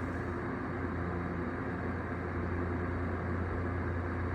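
Steady low hum of background noise, even throughout, with no burp or other sudden sound.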